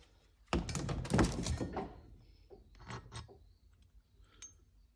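Metal tools and alternator pulley parts being handled: a dense clatter of knocks lasting just over a second, then a few lighter clicks and a short metallic ping near the end.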